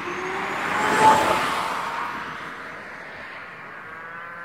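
A car passing by on the road, swelling to its loudest about a second in and then slowly fading away.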